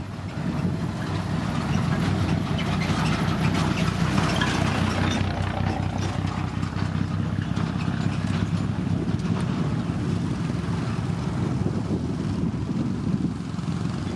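Heavy motor grader's diesel engine running steadily, with a louder, gritty noise layered on from about two seconds in that eases off by about six seconds.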